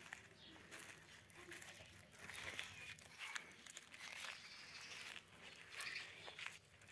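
A tortoise biting and tearing fresh green leaves, with faint, irregular crunching and crinkling at uneven intervals.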